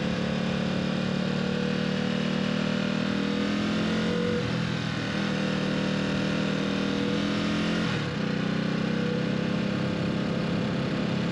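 Ducati Supersport's V-twin engine running under way, its note steady apart from two brief dips about four and eight seconds in.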